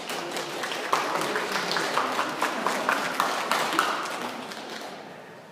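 A small audience applauding, with a few sharper claps standing out. The clapping dies away over the last second or so.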